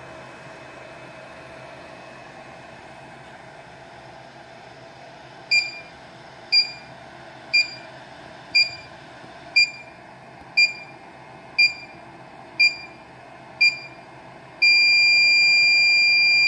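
BGA rework station's alarm beeper sounding the final 10 seconds of the heating profile: nine short high beeps, one a second, starting about a third of the way in, then one long continuous beep near the end that marks heating finished. A steady low hum runs underneath.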